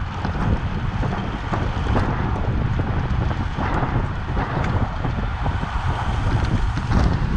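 Wind buffeting the microphone: a steady, fluttering low rumble with a few faint ticks.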